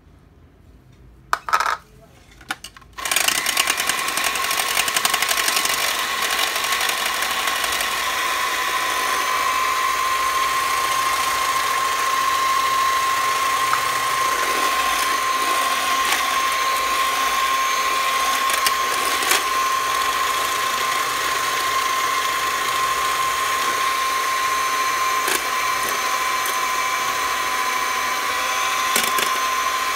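Electric hand mixer switching on about three seconds in and running steadily with a high whine, its beaters whisking egg whites in a stainless steel bowl as they are beaten into meringue. A couple of short clicks just before it starts.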